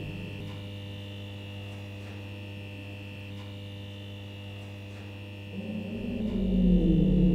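A steady electrical-sounding hum, joined about five and a half seconds in by a low wavering drone that swells up louder.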